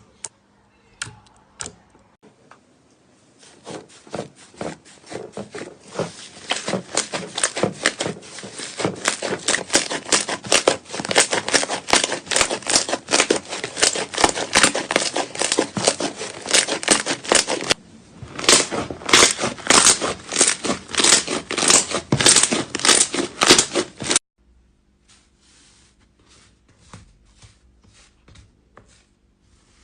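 Slime being squeezed and worked by hand, giving a dense run of small crackling clicks and pops that builds over the first few seconds, dips briefly, then cuts off suddenly, with only a few scattered clicks after.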